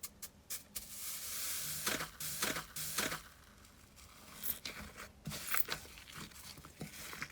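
Slime being squeezed and stretched by hand, giving scattered sticky clicks and pops. From about one to three seconds in there is a soft hissing noise as it pulls apart.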